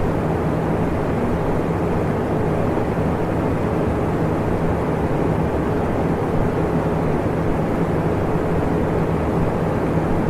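Electric fan running steadily: an even rush of moving air with a low motor hum and a fainter higher hum over it, unchanging throughout.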